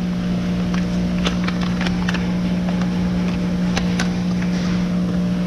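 Steady machine hum, loud and unchanging, with a few sharp clicks from parts and paper being handled by gloved hands.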